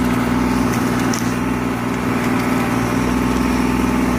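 Bobcat E35i mini excavator's diesel engine running steadily under digging.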